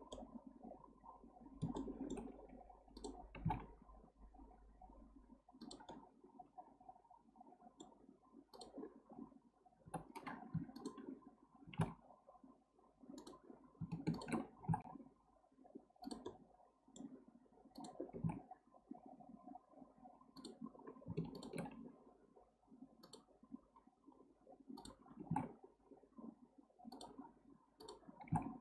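Computer mouse and keyboard clicking at irregular intervals, over faint low background noise.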